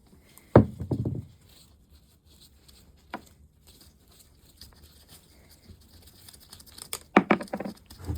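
Tools and parts being handled during a motorcycle engine teardown: one sharp knock about half a second in with a brief rattle after it, a single click a few seconds later, and more clattering near the end.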